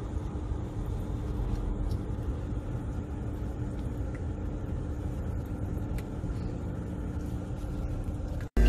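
Steady low rumble of road and engine noise inside a moving car's cabin. It cuts off suddenly near the end.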